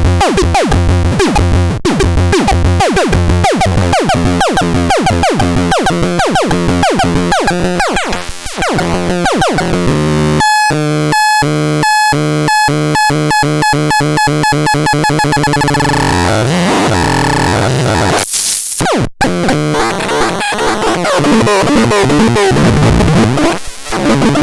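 Electronic synthesized sound effects cycling through patterns: rapid repeated falling chirps, then evenly spaced beeps about ten seconds in, a rising glide, a short burst of hiss, then a jumble of warbling tones.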